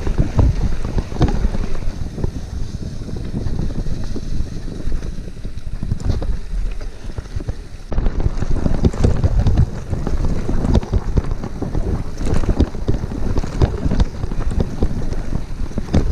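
Wind buffeting the microphone of a bike-mounted action camera while riding a gravel bike over gravel and dirt trail, with a steady low rumble and frequent short knocks and rattles as the bike jolts over the rough surface.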